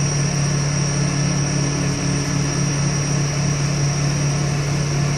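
Heavy construction equipment engine running steadily at a constant speed, a low hum with a thin, steady high-pitched whine above it.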